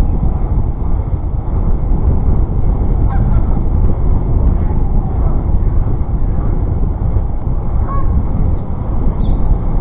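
Steady low wind rumble on the microphone of a moving Brompton folding bicycle, with a few faint short honks about three, eight and nine seconds in.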